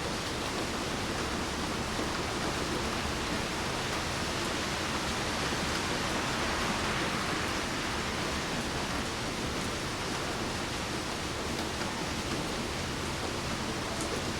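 Steady rain falling, an even hiss that swells slightly about halfway through.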